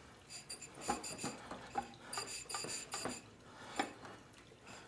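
Light metallic clinking and ticking in two short clusters, about a second in and again near the middle, with a little rubbing, as the rear tire's bead is pressed loose from the motorcycle's rim.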